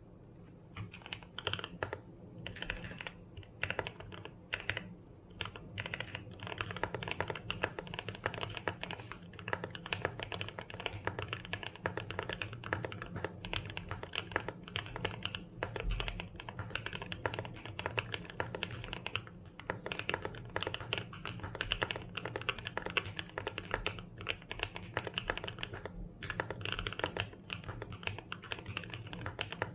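Typing on a TU40 mechanical keyboard in an aluminum case with KTT Strawberry switches. It starts with scattered keystrokes, then from about six seconds in becomes fast, continuous typing.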